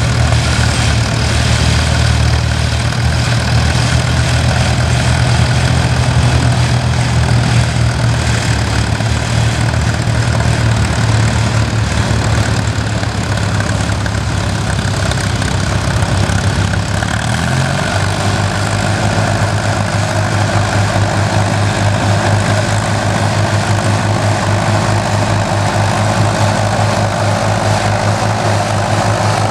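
Vintage four-wheel-drive tractor engine running steadily while pulling a plough through stubble. Its note shifts to a different steady pitch a little over halfway through.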